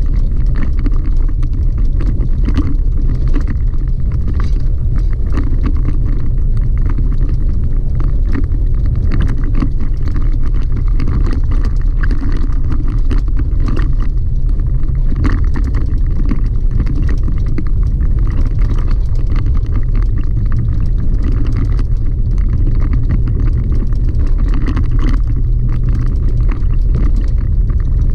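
Chevy Colorado ZR2 pickup driving on a gravel road, heard from inside the cab: a steady low rumble of tyres and drivetrain with a constant patter of small clicks and rattles.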